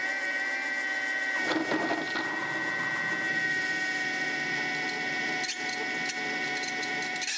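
Mini mill spindle running a step drill as it cuts into MDF, with a steady high whine throughout and a rougher cutting noise about a second and a half in. The drive belt is slipping under the load, which is the owner's diagnosis.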